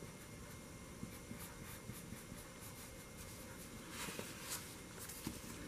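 A graphite pencil scratching faintly on paper in short sketching strokes, with a few louder strokes about four seconds in.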